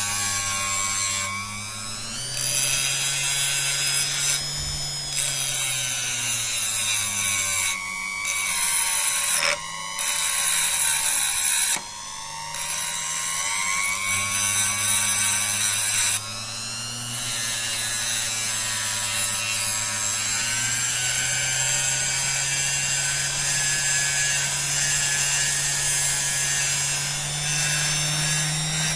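Rotary blade sharpener running: a motor hums while a blade grinds and scrapes against the wheel with a high, rasping hiss. The grinding breaks off briefly several times in the first half, then runs steadily while the motor's pitch drifts slightly.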